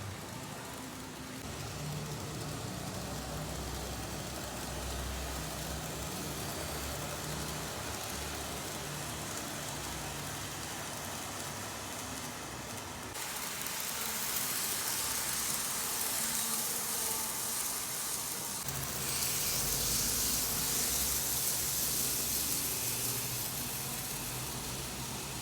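Steady mechanical hum with hiss from a running miniature train setup. The hiss grows louder about thirteen seconds in and again about six seconds later.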